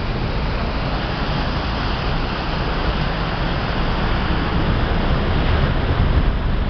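Wind rushing over the microphone and the churning wake of a large motor yacht running fast, one steady loud noise with a strong low rumble underneath.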